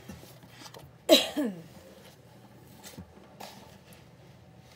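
Handling of a paperback book and a spiral-bound printout on a wooden table: soft rustles and light knocks as the book is closed and the pages are set down. About a second in, a short vocal sound falls in pitch and is louder than the handling.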